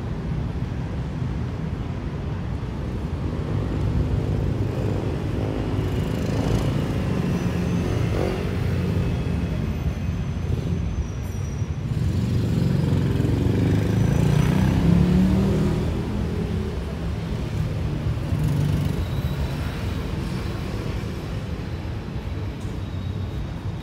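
City street traffic: motor vehicles running and passing, a steady low rumble that swells as a vehicle passes close about two-thirds of the way through.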